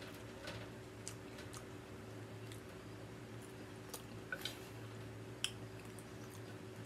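Close-up eating of loaded tortilla-chip nachos: quiet chewing, with scattered sharp crackles of chips being bitten and picked off the plate. A faint steady hum runs underneath.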